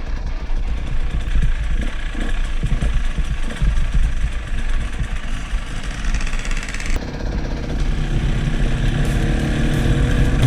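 Off-road motorcycle engine running on a trail ride, with heavy low rumble and wind noise on the microphone. An abrupt change about two-thirds of the way through, then the engine note rises as it revs up near the end.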